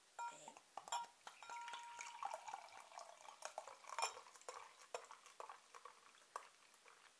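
Bottled ale pouring into a stemmed glass: faint splashing and a crackle of small ticks as the foam head builds, with a few sharp clinks of glass on glass.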